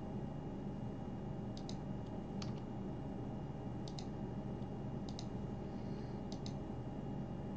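Computer mouse button clicking a handful of times, several clicks in quick pairs, as points are placed while drawing in CAD software, over a steady low hum.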